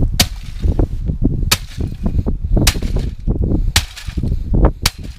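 Sledgehammer blows smashing a small Sony stereo unit: five sharp cracking impacts, about one a second.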